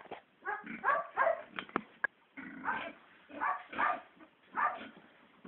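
A string of short animal calls, roughly one or two a second, with two sharp clicks about two seconds in.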